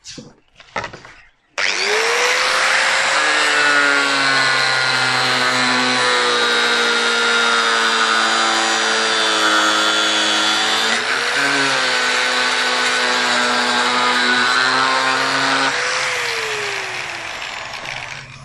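Handheld angle grinder switched on and spinning up, then running steadily while it cuts into the edge of an aluminium composite cladding panel, with a brief dip in its whine partway through. It is switched off near the end and its pitch falls as the disc winds down.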